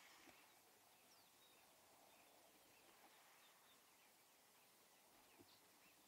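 Near silence: faint outdoor ambience with scattered faint, short bird chirps from distant birds.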